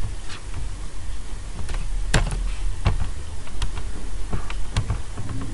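Scattered computer mouse and keyboard clicks, a few sharp ones spaced irregularly, over a steady low hum.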